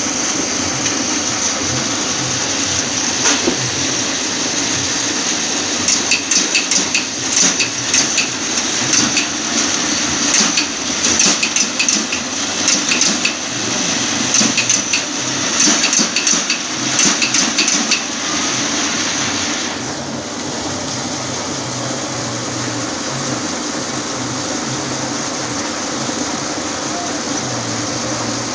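Satay-skewer making machine running: a steady motor hum with a high whine, and a fast, uneven clatter through the middle stretch. The high whine drops away about two-thirds of the way through, leaving the lower running noise.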